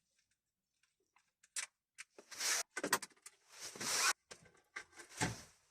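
Handling noises from dashboard work: scattered clicks, knocks and short scraping rubs of plastic trim and small screws, starting about a second and a half in.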